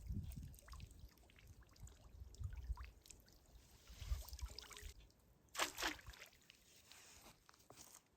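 Faint water trickling and splashing, with scattered small clicks and one short, louder splash nearly six seconds in.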